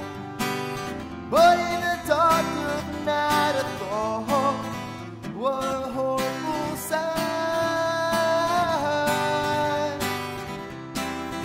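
A man singing to his own strummed Takamine acoustic guitar, holding one long note for about two seconds past the middle.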